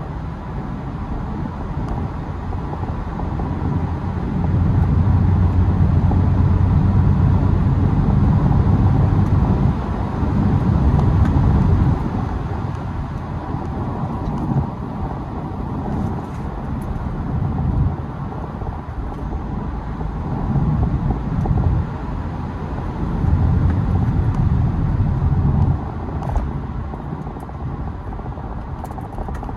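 BMW E92 320d's N47 four-cylinder turbodiesel, breathing through an open air intake, running under load; its sound swells louder several times and drops back, loudest from about four to twelve seconds in.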